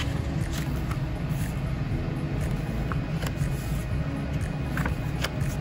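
Steady low background hum of the room, with a few faint, short ticks and rustles as the pages of a colour-vision test plate book are turned.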